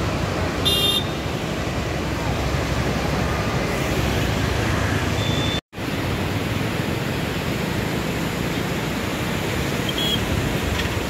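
Steady rushing noise of a river in full flood, broken by a split-second dropout about halfway through.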